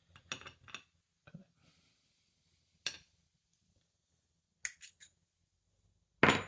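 Small metal lock parts of a disassembled disc-detainer padlock being handled, giving scattered sharp clicks and clinks with gaps of silence between them, the loudest clink near the end.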